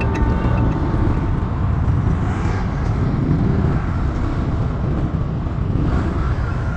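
Steady low rumble of a moving vehicle on the road, with no distinct events.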